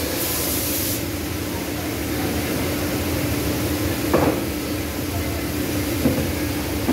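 Loaded kiln car rolling on its floor rails over a steady factory hum, with a clunk about four seconds in and a lighter one about two seconds later. A high hiss stops about a second in.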